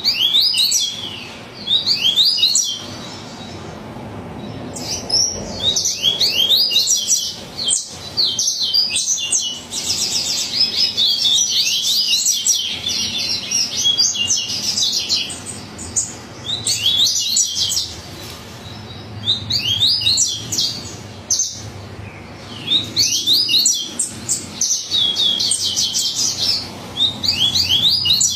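Coleiro-baiano (yellow-bellied seedeater) singing hard: bouts of rapid, high, sweeping notes repeated again and again with brief pauses between phrases.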